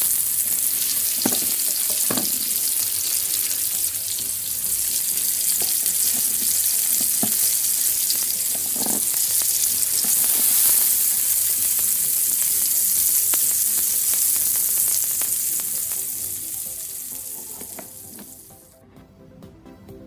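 Sizzling frying sound effect: a steady hiss like food on a hot grill, starting abruptly, then fading and stopping shortly before the end. A few soft clicks sound over it in the first half.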